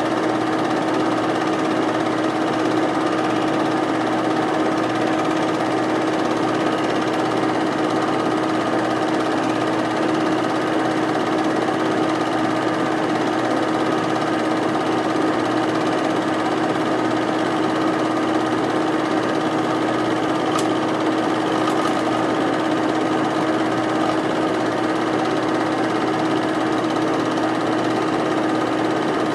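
8mm film projector running: a steady, even mechanical whir with a constant hum.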